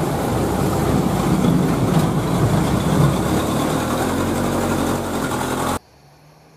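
Light cab-over truck's diesel engine running loudly as the truck drives close on a dirt road, with tyre and road noise; the sound cuts off suddenly near the end.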